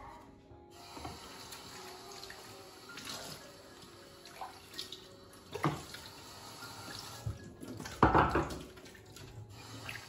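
Tap water running into a kitchen sink as dishes and utensils are washed, with a few short clinks and a louder splash or clatter about eight seconds in.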